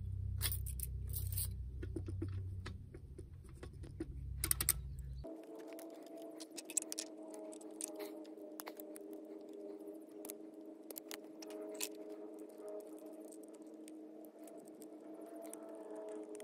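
Light clicks, taps and small rattles of hands handling plastic electrical parts and a screwdriver, scattered throughout and loudest about four and a half seconds in. From about five seconds in, soft background music with held notes plays underneath.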